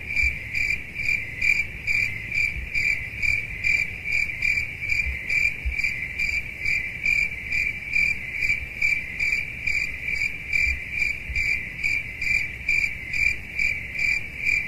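Crickets chirping in an even rhythm, about two to three chirps a second: the stock 'crickets' sound effect for an awkward silence.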